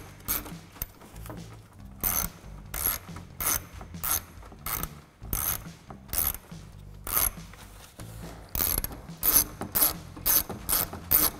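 Hand ratchet turning out 10 mm bolts through an extension and universal joint, its pawl clicking in runs of sharp clicks about one and a half a second, with short pauses between runs.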